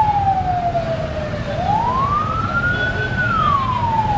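Wailing siren with a slow cycle: it falls, climbs to a peak about three seconds in, then falls again, over the low running of a crowd of motorbikes rolling past.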